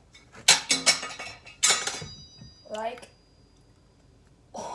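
Metal pots and utensils clattering: a run of knocks about half a second in, then a second clatter near two seconds whose metal rings on briefly.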